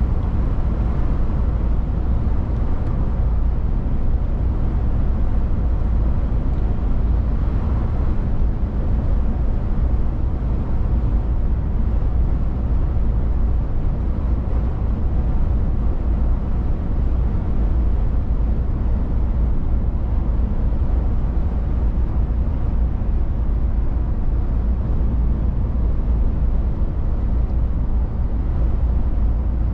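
DAF XF 480 truck's PACCAR MX-13 diesel cruising at highway speed: a steady low rumble with tyre and wind noise that does not rise or fall.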